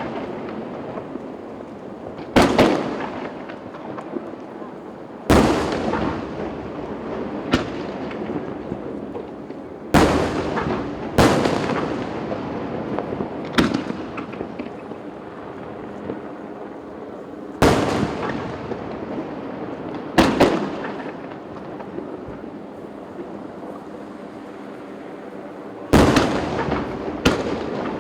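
Aerial fireworks shells bursting in a display, about ten sharp booms spaced a second to several seconds apart, each trailing off in a long fading echo.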